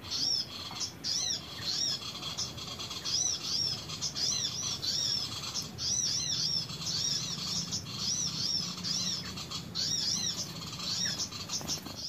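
Small birds chirping: quick, high, arched notes in runs of two or three, repeated over and over.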